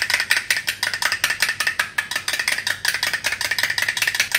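Metal spoon briskly beating an egg, yogurt and honey mixture in a small glass bowl: fast, even clicks of the spoon striking the glass, about ten a second.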